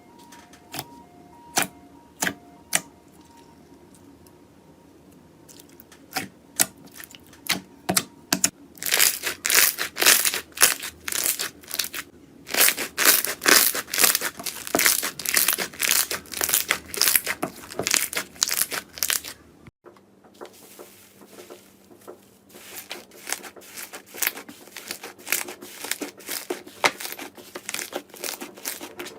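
Slime being squeezed and stretched by hand, making quick crackling and popping clicks. They come sparse at first, then in dense runs. They stop briefly about two-thirds of the way through and then start again.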